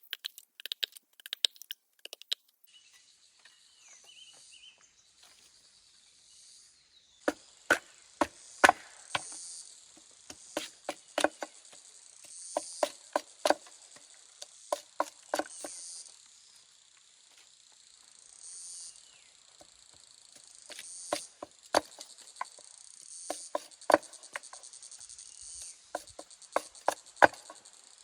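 A chorus of insects chirring steadily, starting about two seconds in, with slow swells in level. Over it come irregular sharp knocks and taps: a few at the start, then many from about seven seconds in.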